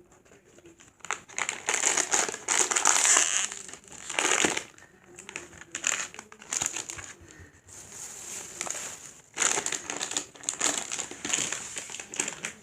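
Plastic blind-bag packaging crinkling and rustling in irregular bursts as it is handled and opened by hand.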